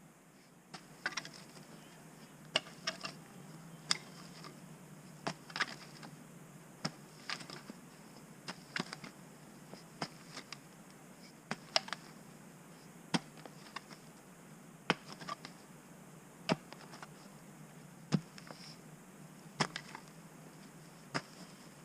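Hand digging tool striking dirt and stones in sharp, regular blows, roughly one every second and a half, as a trail drain is dug out.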